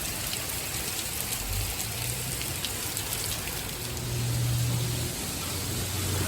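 Hail falling steadily: a dense hiss dotted with many small ticks of hailstones striking.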